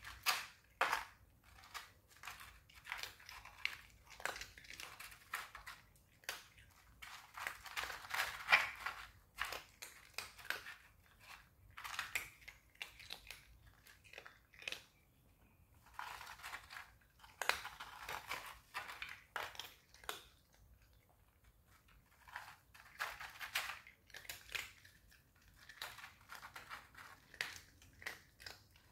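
Two cats chewing and crunching food from a foam tray: irregular runs of short crisp crunches, with a few brief pauses.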